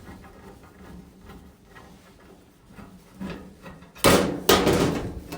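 Faint handling noise, then a loud clatter of knocks and scraping about four seconds in as parts of a dryer's housing are handled, once its last screw is out.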